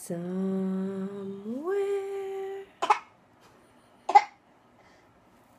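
A woman's drawn-out vocal moan held on a low note, then sliding up about an octave and held, like mock crying; then two short coughs about a second apart, the second the loudest.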